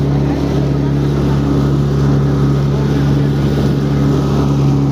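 Jet ski engine running steadily at an even pitch while the craft is under way, heard from the rider's seat.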